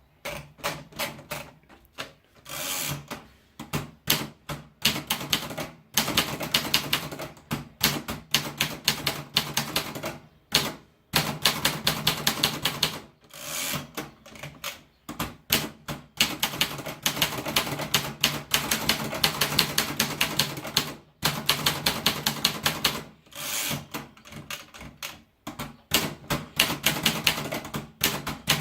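Hungaria typewriter being typed on: fast runs of sharp key strikes, several a second, broken by short pauses every few seconds.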